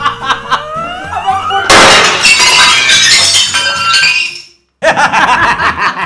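Glass-shattering sound effect over background music. It starts suddenly a little under two seconds in, is loud, lasts about three seconds and fades out into a brief silence. Rising whistle-like glides come before it.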